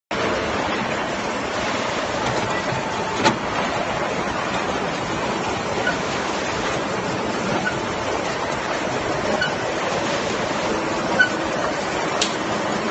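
Steady machinery noise of a Nagema confectionery cut-and-wrap line running, with a few sharp clicks.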